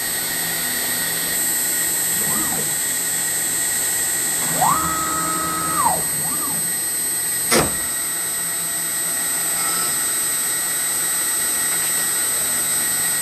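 CNC router running with its vacuum hold-down on: a steady, loud rushing whine. Stepper-driven axis moves rise and fall in pitch over it, the clearest about halfway through. A single sharp knock comes about seven and a half seconds in, as the aluminium plate breaks loose from the vacuum pod.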